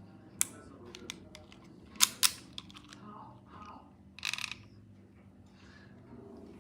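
Handling clicks from a revolver being unboxed: a single sharp click, then two loud metallic-sounding clicks in quick succession about two seconds in, and a short scraping rustle a couple of seconds later.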